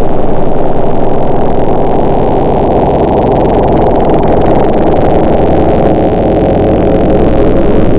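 An engine running steadily and loudly, muffled, its sound held almost entirely low with little change in pitch.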